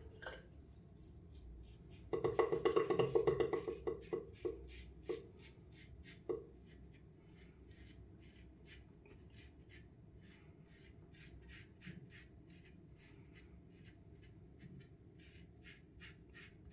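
Timeless bronze double-edge safety razor scraping across lathered stubble under the chin, the blade crackling in short strokes as it cuts the whiskers. About two seconds in there is a louder, quick rattling run of strokes, then lighter, scattered scraping clicks.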